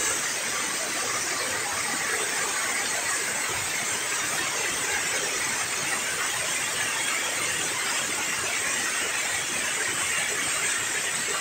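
Steady rush of river water falling over a concrete weir.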